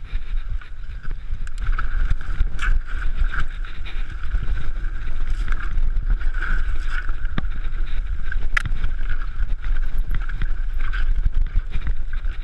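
Mountain bike descending a rough, rocky dirt trail: wind buffeting the microphone and a low rumble, with frequent clicks and rattles from the bike jolting over rocks.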